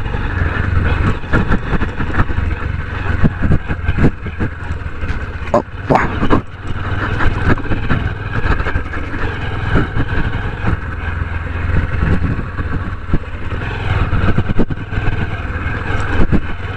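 Honda SP125 motorcycle's single-cylinder engine running steadily while being ridden, its low hum under a steady rush of wind and road noise.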